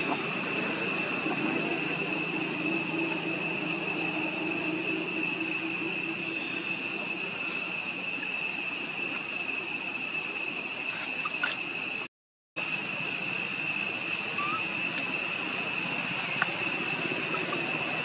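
Steady outdoor insect chorus: several constant high-pitched shrill tones over a soft hiss, with a few faint clicks. It cuts out for about half a second roughly two-thirds of the way through.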